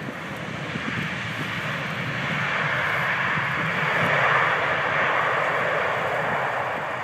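Airbus A380 jet engines on the landing rollout, in reverse thrust on a wet runway: a broad rushing noise that swells to a peak about four seconds in, then eases as the aircraft moves away.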